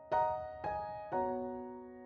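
Background music: gentle piano chords, three struck about half a second apart, each left to ring and fade.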